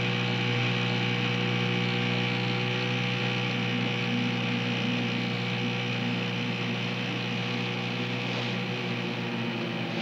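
Outboard motor of a Zodiac inflatable boat running steadily under way, an even engine drone.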